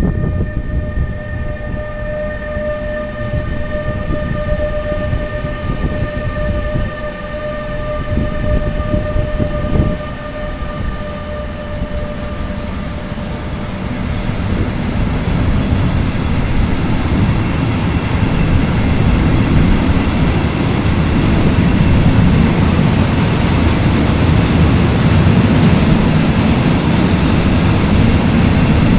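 Two NMBS class 28 Bombardier TRAXX electric locomotives passing with a steady whine that fades after about twelve seconds. A long train of tank wagons follows, rumbling and clattering over the rails and growing louder toward the end.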